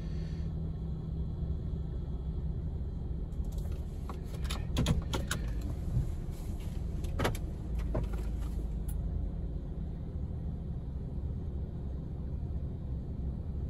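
Steady low rumble heard from inside a car's cabin while it sits in an automatic car wash bay, with a scattered run of light clicks and taps between about four and nine seconds in.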